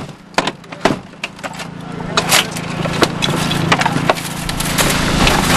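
Hydraulic rescue cutter finishing the cut through a car door's frame: metal creaking, crackling and snapping in a dense run of sharp cracks that grows louder after about a second, over a steady low hum.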